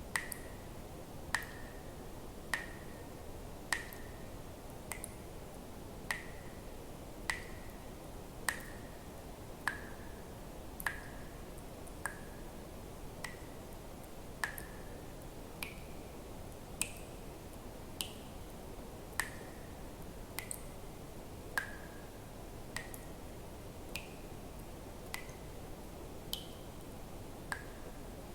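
Single water drops falling into water at an even pace, about one every 1.2 seconds, each a sharp click with a brief ringing tone whose pitch shifts a little from drop to drop, over a faint steady hiss.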